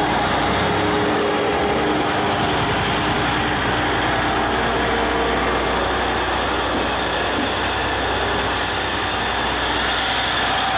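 Diesel-hauled freight train passing close by at low speed: the orange diesel locomotive's engine, then flat wagons loaded with concrete sleepers rolling past with a steady rumble. A high squeal rises and then falls away in the first few seconds.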